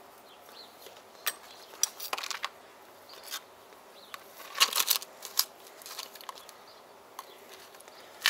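Metal spoon scraping and clicking against a plastic tub as cat kibble, softened in tuna oil, is dug out: a run of short, irregular scrapes and taps, busiest around the middle.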